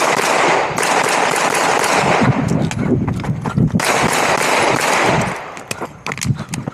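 Rapid pistol fire from a 9mm Glock 47, the shots coming so close together that they run into one continuous crackle, with a short break a little under four seconds in, then separate single shots near the end.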